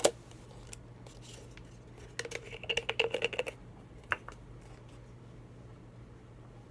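Clear plastic cups being handled and pressed together: scattered clicks and crinkles, with a short rasping squeak about two seconds in and a single tap about four seconds in.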